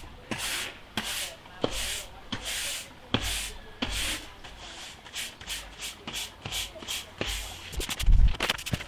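A stiff broom sweeping dry jointing sand across block paving in short repeated strokes, about one and a half a second, with a few sharp ticks, as the sand is brushed into the joints. A brief low rumble comes near the end.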